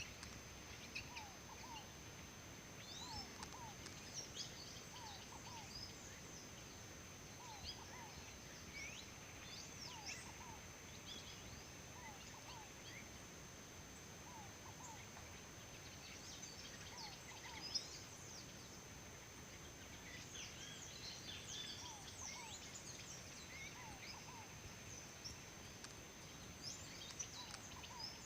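Faint chorus of many small birds chirping and calling, with a short low two-note call repeated every second or so and a steady high-pitched tone beneath.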